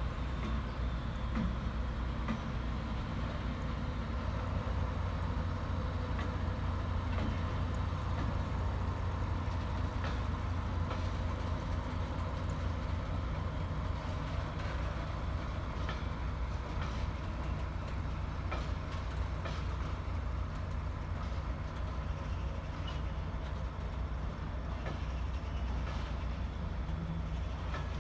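Colas Rail Freight Class 70 diesel locomotive, with its GE PowerHaul V16 engine, running past slowly as a steady low drone, hauling engineering wagons whose wheels give scattered clicks.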